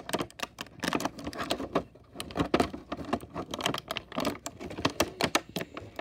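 Clear plastic toy packaging crinkling and crackling in quick, irregular clicks as small plastic accessories are pushed and pried out of it by hand.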